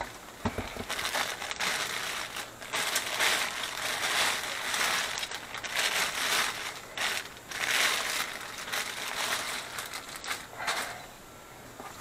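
Plastic bag crinkling and rustling as it is gathered and handled, in uneven spells with short pauses.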